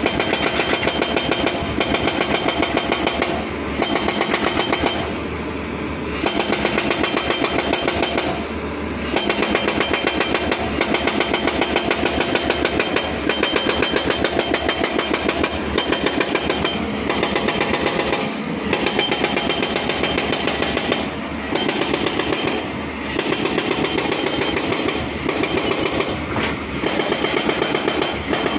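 Hydraulic rock breaker on a Hyundai 215L Smart excavator hammering a rock face in rapid runs a few seconds long, broken by short pauses. The excavator's diesel engine runs steadily underneath.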